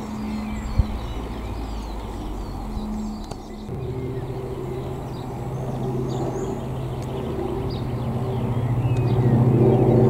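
For the first few seconds a distant twin-engine propeller aircraft gives a steady, even-pitched hum; then a light single-engine propeller plane drones past, its engine and propeller growing louder toward the end as it comes overhead. Birds chirp faintly throughout, and there is a single sharp click about a second in.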